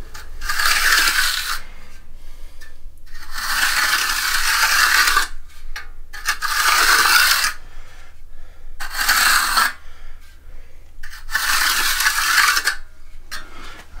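Steel hand trowel sweeping across freshly poured wet concrete, smoothing and finishing the surface: about five long scraping strokes, each one to two seconds.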